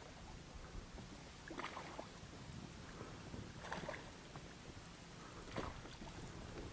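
A hooked Kentucky (spotted) bass thrashing at the water's surface beside the boat: three short splashes about two seconds apart.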